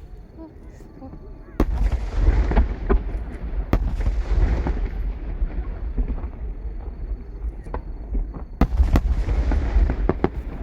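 Aerial fireworks shells bursting: a sharp boom about one and a half seconds in, followed by a dense stretch of crackles and further bangs, then another loud burst near the end.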